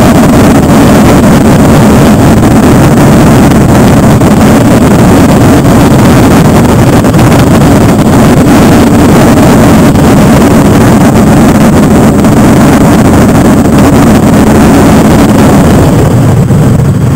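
Engines of a large pack of touring motorcycles running at low speed, a loud, steady rumble heard from on one of the bikes. The sound thins slightly near the end.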